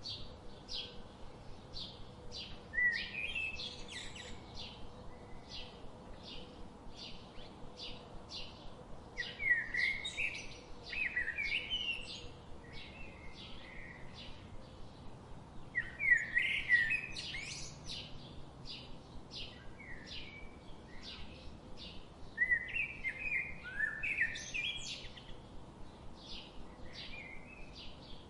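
Songbirds singing: a steady run of short high chirps, about two a second, with louder warbling song phrases breaking in four times.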